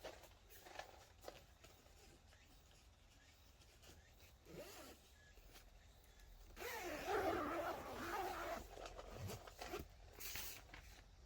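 A zipper being drawn in one long pull about two-thirds of the way in, followed by a few shorter tugs, with faint handling clicks before it.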